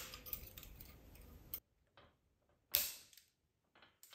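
A few light metallic clicks and clinks of a brass synchronizer locking ring being handled and seated onto a steel transmission gear shaft, the sharpest about three seconds in.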